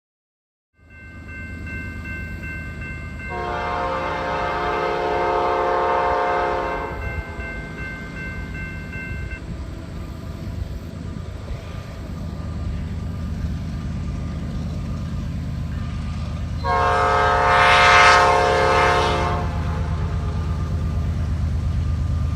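Diesel freight locomotive's multi-note air horn sounding two long blasts, about ten seconds apart, over the steady rumble of the locomotive's engine, which grows louder as the train approaches.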